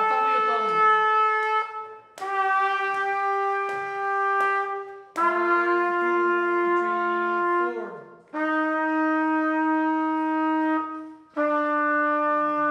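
Saxophone and brass instruments holding five long notes one after another, each a little lower than the last, with short breaks between them, like a long-tone practice exercise. Under the third note a lower note sounds with it.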